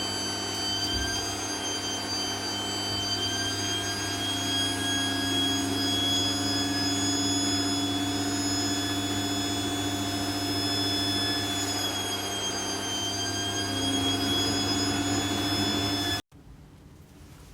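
Vacuum cleaner running steadily, a high motor whine over a rushing hiss, its pitch dipping slightly twice. The sound stops abruptly near the end.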